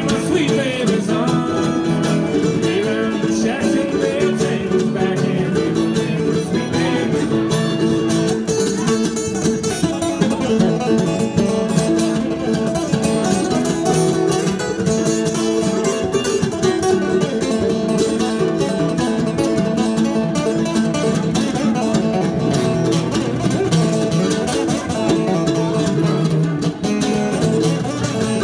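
Mandolin and acoustic guitar playing a bluegrass tune together, an instrumental break with the guitar strumming the rhythm under the mandolin.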